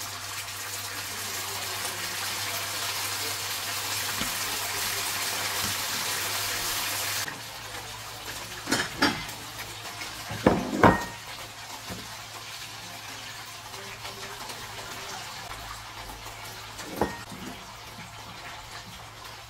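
Kitchen noise: a steady hiss that cuts off abruptly about seven seconds in, followed by a few sharp knocks of kitchenware, the loudest pair about ten and a half seconds in and one more near the end.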